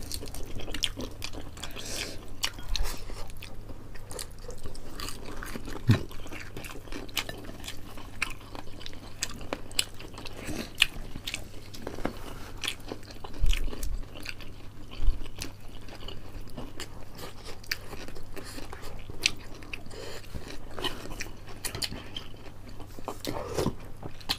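Close-up eating sounds: two people biting, chewing and tearing whole fried chicken with their hands, with many small crunches and clicks. There are a few louder low knocks, and a steady low hum underneath.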